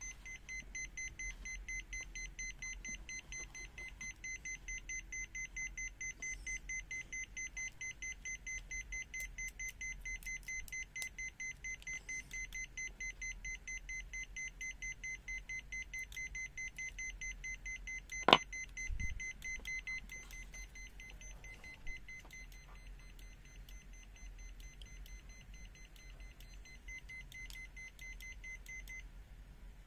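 A digital multimeter's buzzer sounding a steady, rapidly pulsing high beep that stops shortly before the end. About two-thirds of the way through there is one sharp click, the loudest sound, followed by a soft low thump.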